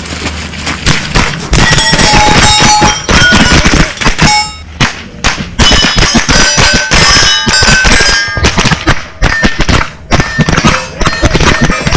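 Rapid semi-automatic rifle fire at steel targets: quick strings of shots, several a second, with the steel plates ringing after hits. There are brief pauses about four and a half and ten seconds in.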